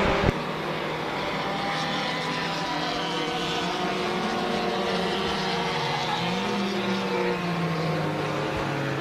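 Race car engine running on track at a distance: a steady engine note that climbs in pitch about six seconds in and then eases off. A short knock sounds right at the start.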